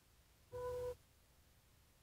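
One short single-pitch beep about half a second in, lasting under half a second, over an otherwise faint, steady background hiss.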